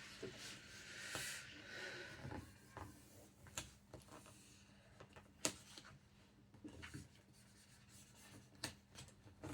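Faint rubbing of a plastic squeegee being worked over self-adhesive vinyl film on a flat drawer face, strongest in the first couple of seconds, with a few sharp light ticks scattered through the rest.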